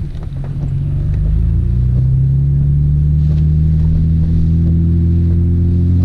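Nissan Skyline R32 GT-R's RB26DETT twin-turbo straight-six heard from inside the cabin, pulling away at low revs: the engine note climbs gradually over the first few seconds, then holds steady.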